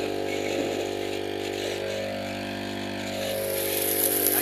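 Engine of a firefighting quad running steadily at an even speed while its pump drives a water jet through the hose. A loud hiss rises in near the end.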